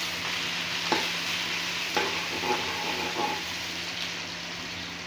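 Chopped onion and cumin sizzling in hot oil in an aluminium kadhai, stirred with a spatula that knocks and scrapes against the pan a few times.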